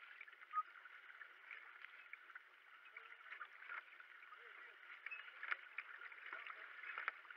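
Kayak paddle strokes dipping and splashing beside a racing kayak, with water washing along the hull. The sound is faint and steady, broken by a few short sharp splashes.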